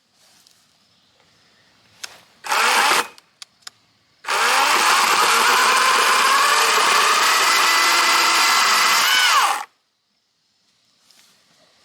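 Wild Badger 40-volt battery chainsaw: a short burst of the motor, then a run of about five seconds with its motor whine drifting in pitch, bending upward just before it cuts off suddenly. A few clicks come between the two runs.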